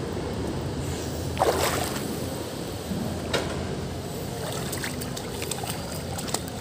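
Pool water splashing and lapping as children swim and kick, over a steady low hum, with one louder burst about a second and a half in.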